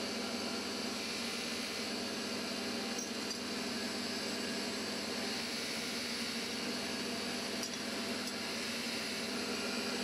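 Steady mechanical hum and hiss of machinery running in a workshop, with a couple of faint metal clicks from pliers working small steel latch parts.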